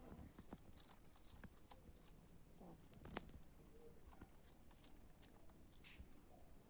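Near silence: faint background with scattered light ticks and rustles, and one sharper click about three seconds in.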